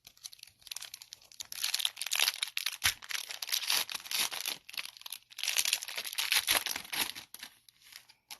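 A trading card pack wrapper being torn open and crinkled in the hands, a dense crackling that comes in two long loud spells.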